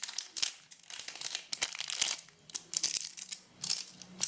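Plastic packaging crinkling in irregular quick crackles as it is handled.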